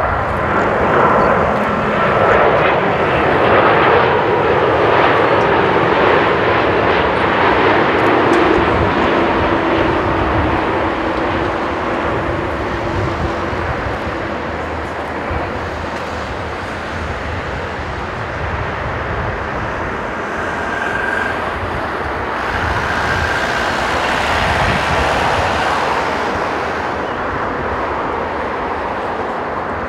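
Boeing 787-9 airliner's jet engines on a landing approach, a loud steady rush with a whine as it passes close by, easing off after touchdown. A second swell of engine noise comes about twenty-two seconds in, as the aircraft rolls out on the runway.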